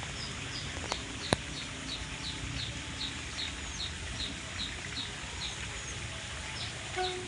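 A bird calling a long, regular series of short, falling chirps, about three a second, over a steady hiss. Two sharp clicks come about a second in.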